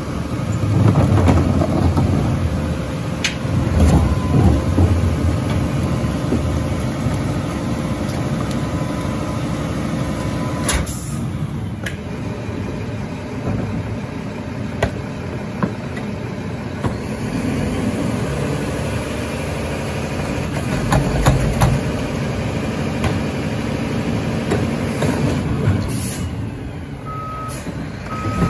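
Mack LR garbage truck's diesel engine running, heaviest in the first few seconds, with a single sharp noise about eleven seconds in. Near the end its backup alarm starts beeping, about once a second.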